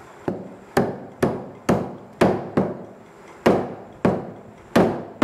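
A heavy butcher's cleaver chopping a goat's tail into pieces on a wooden chopping block: about nine sharp chops at irregular spacing.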